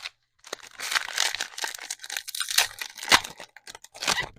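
Plastic foil wrapper of a trading-card pack crinkling and tearing as it is pulled open, with a couple of sharp snaps of the wrapper near the end.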